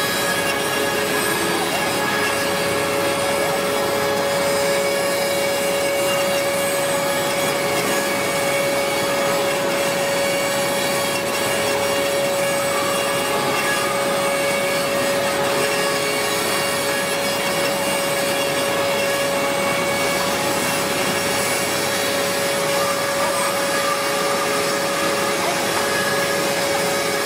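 CNC spindle with an end mill cutting into a white stone workpiece under water coolant: a steady grinding hiss, with a steady whine that sets in about two seconds in.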